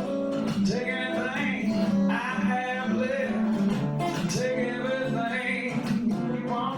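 Acoustic guitar playing a country song live: strummed chords under a melody line of sliding, bending notes.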